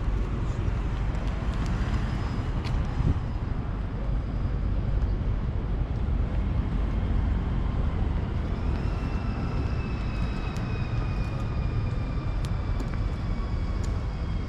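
City street traffic rumbling steadily, with a faint high whine that glides slowly downward in pitch from about halfway through, and a few light clicks.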